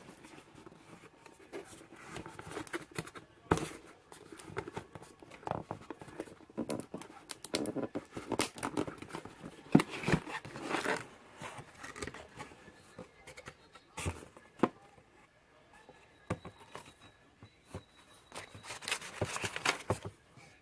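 A package being unboxed by hand: irregular tearing and crinkling of packaging, with scattered sharp clicks and knocks.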